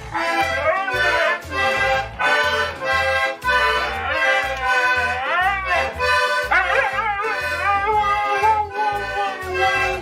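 Accordion music with a steady beat, and a dog howling along over it in long, wavering, gliding notes, the longest held for a couple of seconds near the end.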